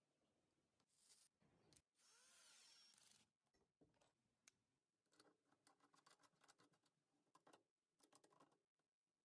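Near silence, with faint scattered clicks and a brief faint hiss about two seconds in.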